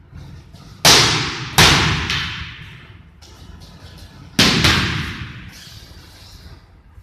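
Training sticks striking punching bags: four sharp cracking hits in two pairs, one pair about a second in and another about four and a half seconds in, each ringing out in the echo of a large, bare hall.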